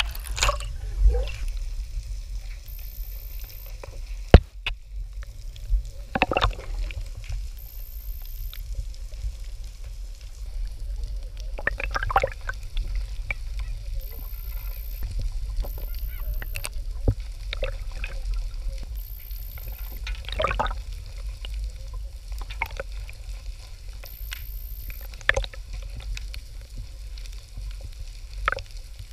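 Scuba diver's regulator breathing, heard underwater on a GoPro: bubbly exhalation bursts every few seconds over a low steady rumble, with a sharp click about four seconds in.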